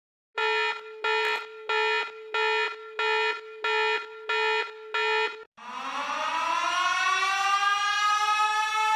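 Alarm sound effect: about eight evenly spaced beeps on one steady pitch, then a siren that winds up in pitch from about five and a half seconds in and holds a steady wail.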